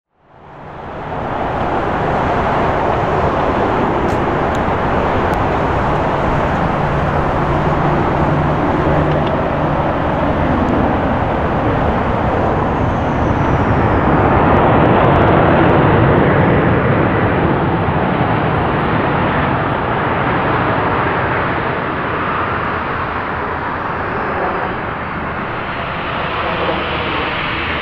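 Jet engines of a Boeing 737-900ER airliner (CFM56-7B turbofans) running on the runway: a loud, steady noise that fades in over the first second.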